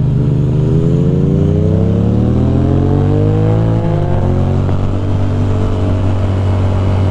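Ducati Monster motorcycle engine accelerating hard to overtake, its pitch climbing for about three to four seconds. It then levels off at a steady cruise.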